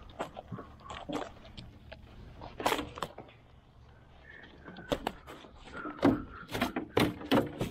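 Irregular knocks and clatter, sparse at first and coming thicker and louder from about five seconds in.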